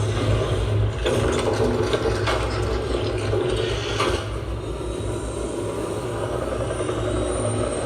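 Movie sound effects played through a Panasonic SC-HTB18 soundbar and its subwoofer: a heavy, steady bass rumble under mechanical clattering and whooshing, with a faint high whistle sliding down near the end.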